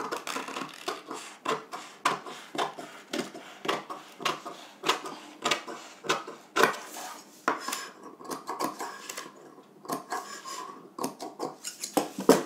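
Large steel tailor's scissors cutting through stiff brown pattern paper: a run of uneven, crisp snips, about one or two a second, as the blades close again and again along a curved line.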